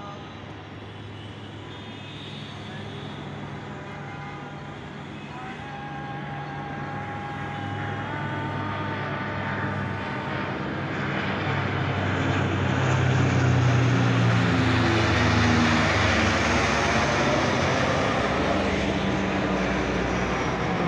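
Propeller drone and turbine whine of turboprop aircraft flying over in formation, a large four-engine transport with a smaller twin-engine one. The sound grows louder as they approach, is loudest about two-thirds of the way through, and drops in pitch as they pass.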